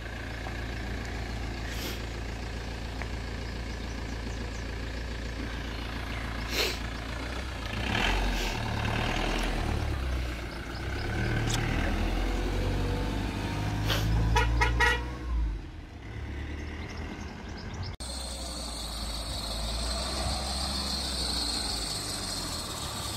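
Large diesel van engines running at low speed as the vans pull away, a Ford Transit 125 T350 passing close by. The engine note grows heavier about eight seconds in, with a brief burst of short repeated sounds around fourteen seconds, and it changes abruptly to another van's engine about eighteen seconds in.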